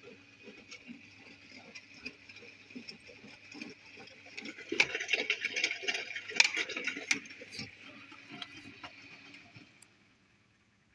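Miele De-Luxe W423 washing machine running: a steady motor hum with irregular pattering and clicking from the drum, loudest about halfway through, then dying away to near silence near the end as the drum stops.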